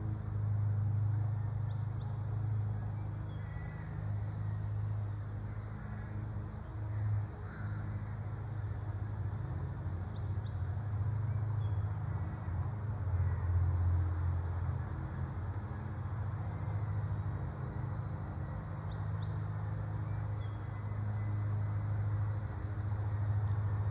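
A steady low mechanical hum, with a short high chirp heard three times, several seconds apart.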